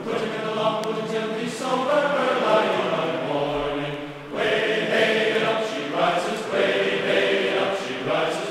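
Choir singing with held, gliding notes, as a background music track.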